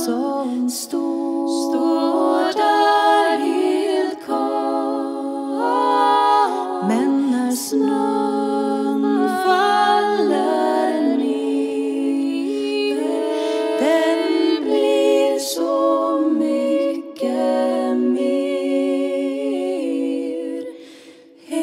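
Women's vocal group singing a cappella in layered harmony, with a low part holding steady notes beneath the moving upper voices. The singing dips briefly near the end.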